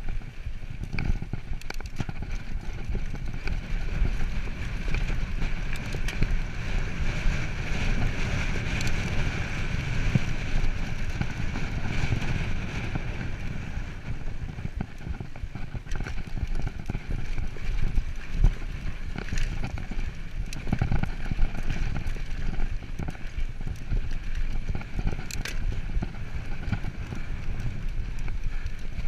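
Mountain bike rolling over a dirt singletrack: a steady low rumble of the knobby tyres on packed dirt, with the bike rattling and knocking irregularly over bumps.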